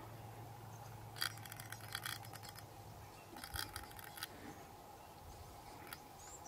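Two short runs of rapid, light clicks, about a second in and again past the middle, over a faint low steady hum.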